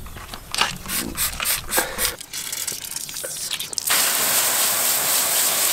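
A few light clicks and knocks. About four seconds in, a garden-hose spray nozzle opens with a sudden, steady hiss of water jetting onto a trailer wheel, rinsing off the degreaser.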